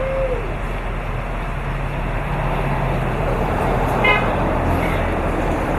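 Steady outdoor noise with a low hum, and a single short toot about four seconds in.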